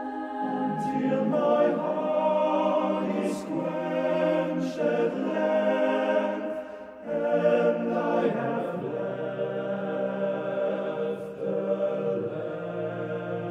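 Mixed choir singing a cappella in six parts (SSATBB), sustained chords with words sung on them. Lower voices enter just after the start, the sound briefly dips a little past the middle before the voices come back in, and the bass sinks lower near the end.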